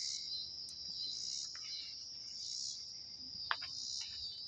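Insects chirring in a steady high-pitched chorus that swells and eases in regular waves, with one faint click about three and a half seconds in.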